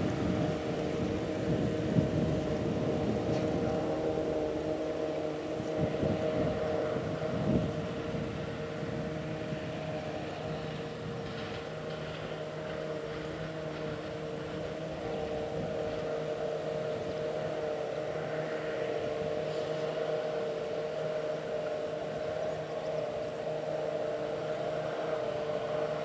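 Krone Big X self-propelled forage harvester running steadily under load as it chops standing corn and blows silage into a truck alongside: a continuous mechanical drone with a steady whine held through it. There is extra rumble and a few bumps in the first several seconds.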